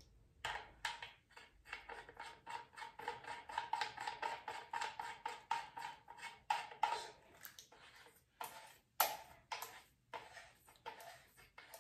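A TSS muzzle device being screwed by hand onto the threaded barrel of a Pak-9 9mm pistol: a fast, irregular run of small metallic clicks and rattles, with one louder knock about nine seconds in.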